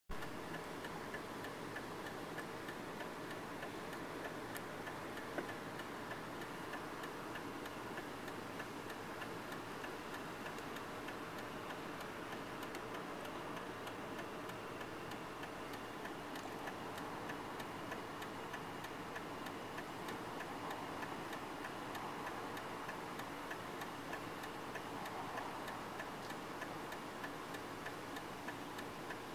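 Steady noise inside a slowly moving car, with a faint regular ticking running through it.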